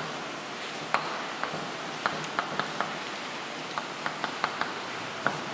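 Chalk writing on a blackboard: about a dozen short, irregular taps and clicks as the chalk strikes and drags across the board, over a steady background hiss.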